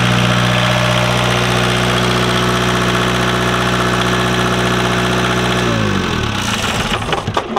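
Westerbeke 12.5 BTD diesel generator running at a steady speed, then shut down about six seconds in: its pitch falls as it winds down and it clatters and knocks to a stop near the end.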